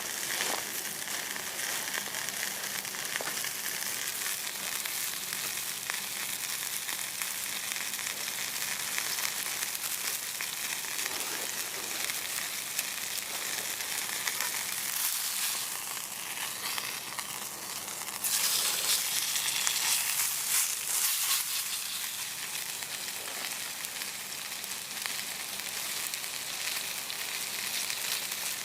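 Steak sizzling as it fries in a pan over a campfire, a steady crackling hiss that grows louder for a few seconds about two-thirds of the way through.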